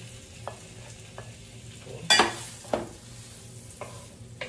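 Shallots and garlic sizzling in butter in a frying pan while being stirred, with a few light clicks. About two seconds in come two loud, sharp clatters, the first the loudest.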